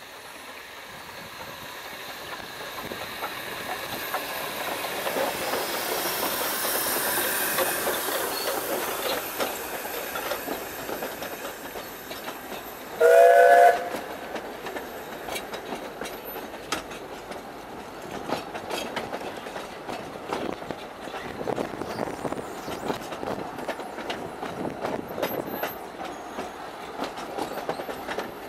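A narrow-gauge Garratt steam locomotive, NGG16 No. 87, draws near and passes, growing louder over the first seven seconds or so. Its steam whistle sounds once, a chord of several tones lasting about a second, about halfway through. After that the coaches roll by, clicking over the rail joints.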